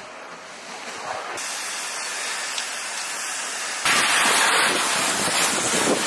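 Fire hose spraying water on a fire: a steady rushing hiss that jumps louder about four seconds in.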